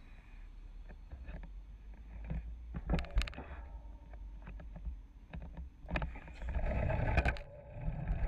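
City traffic rumble heard from a bicycle at a busy intersection, with scattered clicks and knocks. About six seconds in the bicycle rolls off and a louder rushing noise with rattling takes over.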